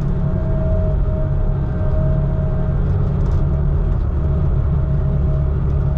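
Steady low drone of a heavy engine running under load, heard from inside the cab, with a faint steady whine above it.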